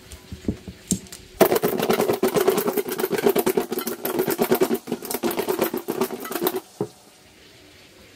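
A lidded stainless steel mixing bowl of sauced chicken wings shaken hard to coat them. After a few small clicks as the plastic lid is pressed on, it gives a rapid, even rattle for about five seconds, then stops with a single knock as the bowl is set down.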